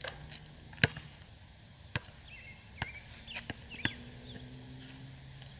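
Basketball bouncing on an asphalt court: about six sharp single bounces at uneven intervals, the loudest about a second in. A few bird chirps come in between.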